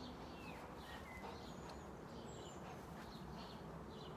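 Quiet outdoor ambience: small birds chirping in short repeated calls over a steady low background rumble.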